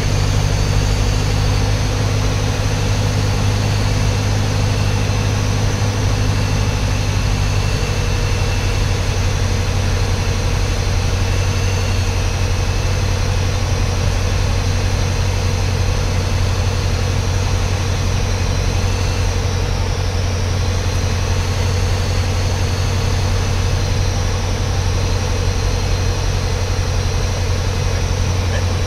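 Light single-engine propeller plane's engine and propeller droning steadily, heard from inside the cabin. The engine note drops slightly about a quarter of the way in, as power comes back on the approach to the runway.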